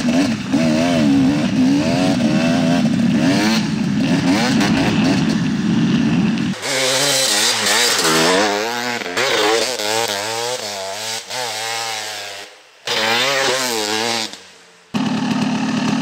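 KTM 300 XC-W dirt bike's single-cylinder two-stroke engine with full FMF exhaust, revving up and down under load as the bike rides and spins its rear wheel in snow. The engine note rises and falls repeatedly and cuts off abruptly and picks up again several times.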